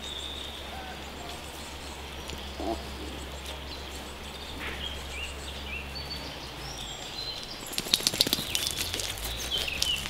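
Small birds chirping over a steady low outdoor background. From about eight seconds in, a quick run of clicks and crunches as a small dog walks across loose pebbles close by.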